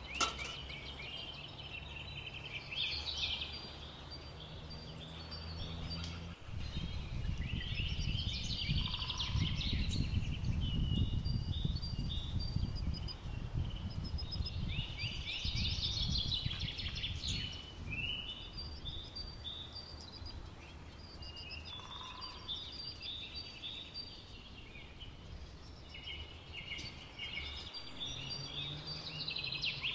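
Birds chirping and singing in quick, repeated short notes throughout, with a low rumble for about ten seconds starting some six seconds in.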